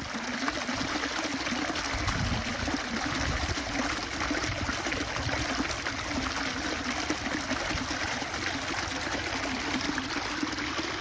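Running water trickling and splashing in a steady flow.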